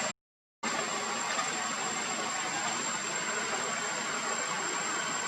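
Steady background noise with a thin, high, steady whine, broken by a half-second dropout to silence just after the start.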